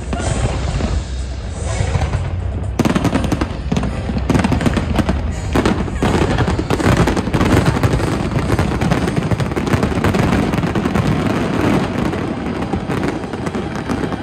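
Fireworks exploding in quick succession, with sharp bangs and crackling. The bursts grow dense and nearly continuous about three seconds in. Music plays underneath.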